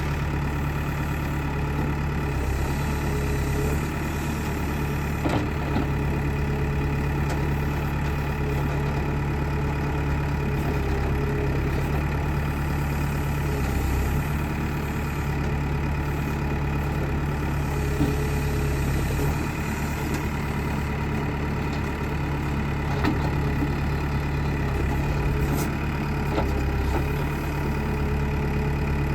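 Backhoe loader's heavy engine running steadily at a constant, even speed.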